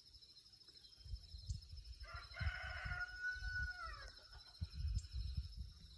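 A rooster crows once, about two seconds in: one long call that holds, then drops in pitch at the end. Under it, Idaho pasture pigs snore in low, irregular rumbles.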